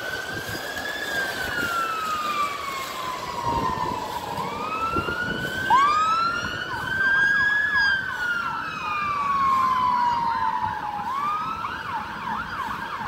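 Fire engine siren wailing: each cycle climbs quickly and then falls slowly, repeating about every four to five seconds. From about six seconds in, a quick chirping tone overlaps the wail.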